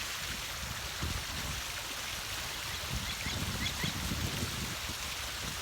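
Water running steadily, a continuous stream-like rush, with a few faint high chirps about three to four seconds in.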